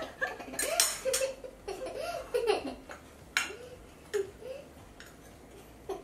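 A young girl giggling in short bursts of laughter, loudest in the first half, with a few light clicks of forks on plates.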